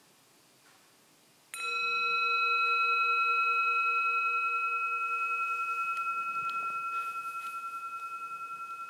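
A metal singing bowl struck once, about a second and a half in, then ringing on with several overtones. The tone fades slowly with a steady wavering pulse, and its lowest note dies away after a few seconds.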